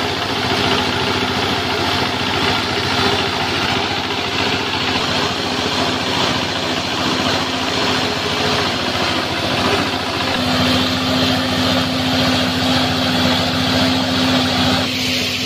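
Small stationary diesel engine running steadily, belt-driving a coffee grinder as it mills roasted coffee beans. A steady hum grows stronger about ten seconds in.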